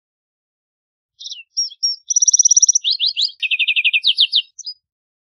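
Lark sparrow singing one full song, starting just over a second in: a few short scratchy notes, then a string of fast trills and buzzy phrases at changing pitches, ending with two brief notes.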